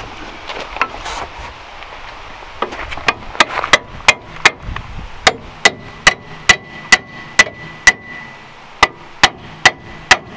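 Hammer striking metal on the car's front suspension during a lower control arm replacement: more than a dozen sharp blows, about two a second, starting a few seconds in, with a faint ringing note in the middle of the run.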